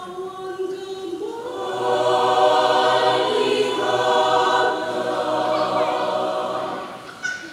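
Mixed adult choir singing long held chords in several voice parts, swelling louder about a second and a half in and fading near the end.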